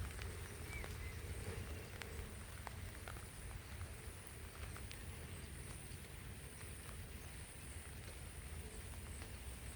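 Faint outdoor ambience: a steady high-pitched drone over a low rumble, with a few light scattered ticks.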